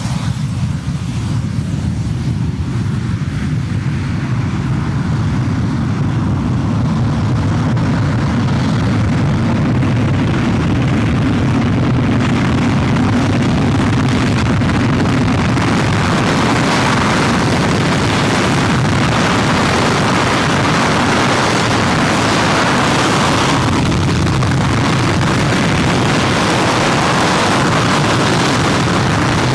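F-16 Fighting Falcon's General Electric F110 turbofan running at high power during a ground engine test, with the jet anchored on a trim pad. The steady jet noise grows louder and brighter over the first several seconds, then holds.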